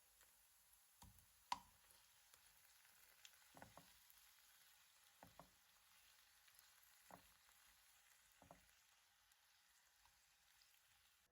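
Faint sizzling of food frying in a pan, with a utensil knocking against the pan about six times as the food is stirred.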